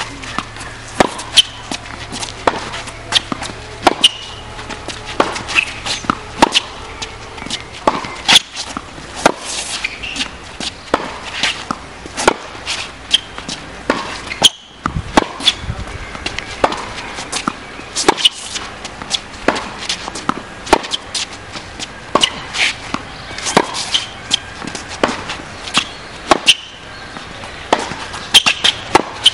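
Tennis rally on a hard court: a steady run of sharp racket strikes on the ball and ball bounces, about one or two a second, with a brief break about halfway.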